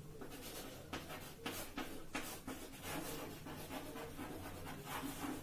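Chalk writing on a blackboard: a quick run of short strokes as words are written out.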